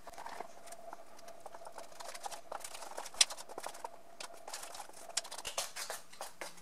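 Metal spoon stirring thick melted chocolate and hazelnut spread in a stainless steel bowl, with irregular scraping and light clicks against the sides and one sharper knock a little over three seconds in.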